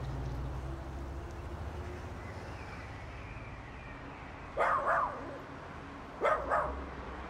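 A dog barks two short double barks, about a second and a half apart, over a steady low background.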